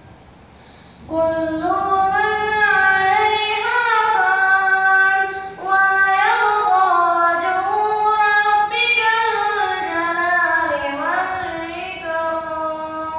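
A boy's unaccompanied solo voice chanting a melodic recitation in long, drawn-out gliding notes. It starts about a second in, with a short breath break near the middle.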